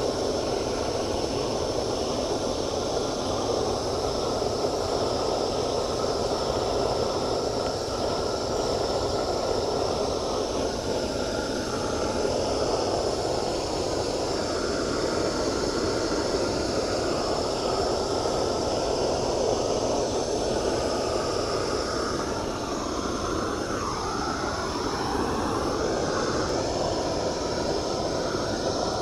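Hose-fed propane torch burning steadily, a constant rushing noise from its flame as it chars the cut ends of peeled logs.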